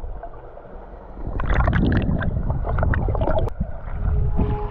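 Muffled underwater gurgling and bubbling of pool water around a submerged camera microphone, quieter at first and louder from about a second and a half in.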